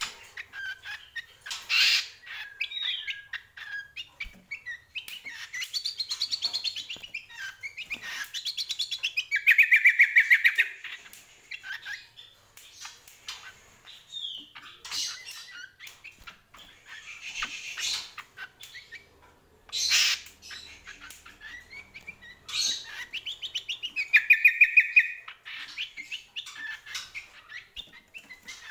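Caged cucak kombo songbird singing at full volume in a long run of varied chirping phrases, with rapid buzzy trills about ten seconds in and again near the end. A few brief sharp flutters of its wings sound as it hops about the cage.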